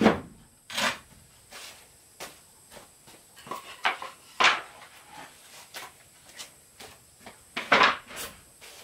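Wooden building pieces being handled and knocked together: irregular knocks and clatters, loudest right at the start and again near the end.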